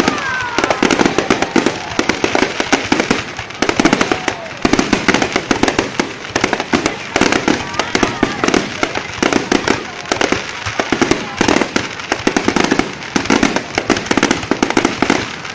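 Fireworks display going off in rapid succession: dense, unbroken bangs and crackles.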